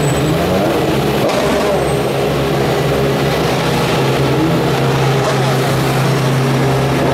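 DTM race cars' V8 engines running at low, steady pit-lane speed, a steady drone that holds one pitch and grows stronger in the second half as a car passes close below.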